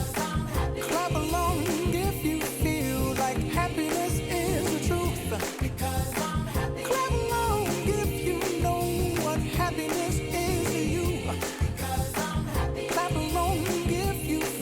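Background pop song with a steady beat and a singing voice.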